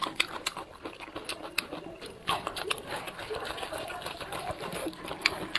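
Close-up eating sounds: a person chewing, with many irregular sharp mouth clicks.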